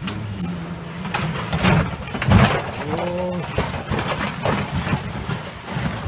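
Bumps, knocks and rustling from a handheld phone jostled through brush, over a low steady drone. About three seconds in comes a short call that rises and falls in pitch.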